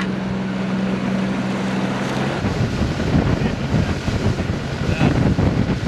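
A boat motor's steady low hum that cuts off suddenly about two seconds in, followed by gusty wind buffeting the microphone.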